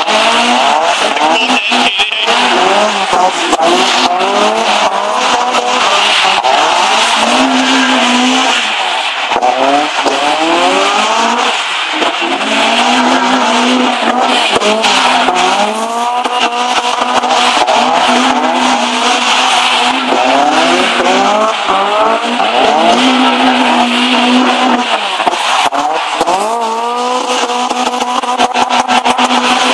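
Toyota twin-cam Corolla four-cylinder engines revving hard while the cars drift in circles. The engine pitch climbs again and again and is held high for stretches, over continuous tyre squeal and screech.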